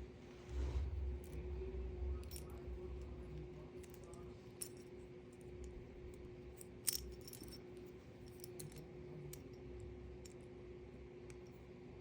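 Scattered small clicks and taps of hands handling a plastic no-sew zipper pull and the cushion's zipper, with a sharper click about seven seconds in. A faint steady hum runs underneath.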